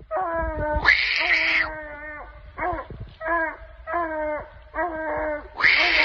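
Female hound bawling over and over: a rapid string of short, pitched, howling calls, with two louder, harsher calls about a second in and near the end.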